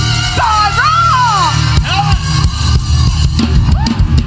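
Live band music with a steady low bass line, high sliding tones that rise and fall in the first couple of seconds, and drum kit hits coming in near the end.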